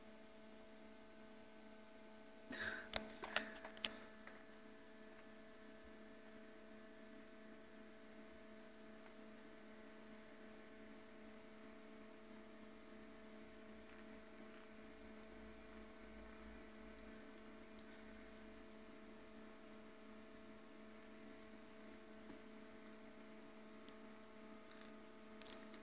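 Near silence under a steady electrical hum of several tones, with a quick cluster of sharp clicks about three seconds in.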